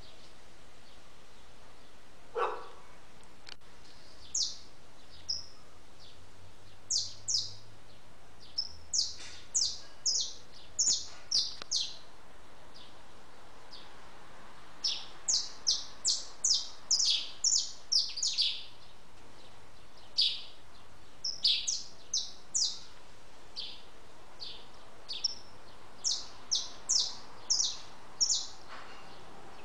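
Small songbirds chirping: many short, high chirps, each a quick downward stroke, coming in quick runs of several a second with short gaps between runs.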